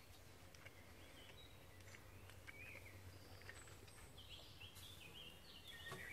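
Near silence with faint bird chirps, short rising and falling calls that come more often in the second half, and a few faint ticks.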